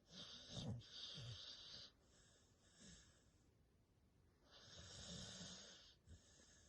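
Faint snoring. A long snore in two pulses comes at the start, then a weaker breath, then another long snore about two-thirds of the way through.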